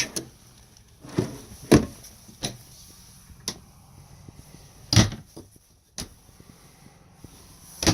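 A handful of separate knocks and clicks from RV storage cabinet doors and their latches being opened and shut.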